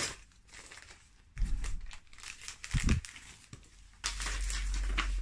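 Plastic wrapping crinkling and rustling in several bursts as the packaged metal clothes rack is handled, with a short dull knock a little before the three-second mark.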